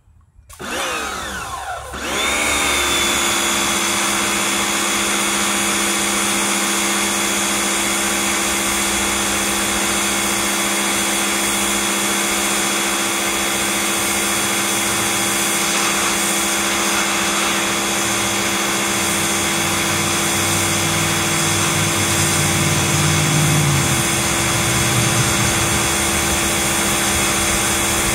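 Electric pressure washer starting up with a short rising whine when the trigger is pulled, then running steadily from about two seconds in: motor and pump hum with the hiss of the water jet spraying onto concrete.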